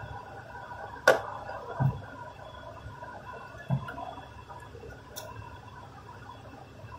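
Hands working on the engine's black plastic intake parts during dismantling: a sharp click about a second in, two dull knocks, then a light tick, over a steady workshop hum with faint high tones.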